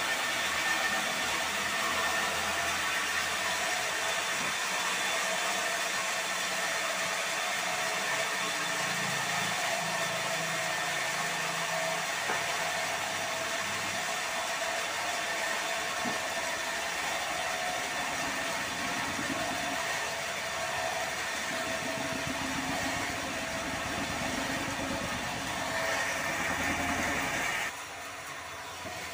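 Sawmill machinery running steadily, a constant mechanical hum with a steady whine over it. The level drops suddenly near the end.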